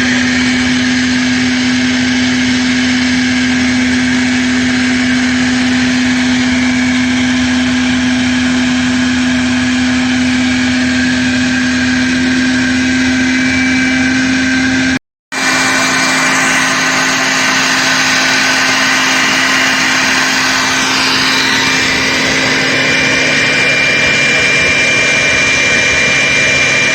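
A motor-driven blower running steadily with a strong hum, blowing the water out of a sprinkler line through its hose connection so the pipe stops dripping. It cuts out for a moment about halfway and comes back with a slightly changed tone.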